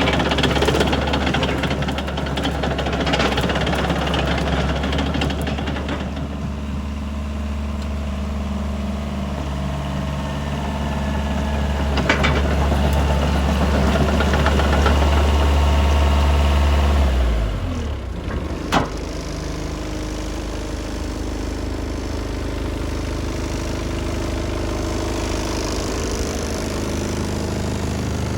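Diesel engine of a Mitsubishi BD2J bulldozer running steadily at raised speed, then dropping to a lower, steady idle a little past the middle. A sharp clank comes just after the drop.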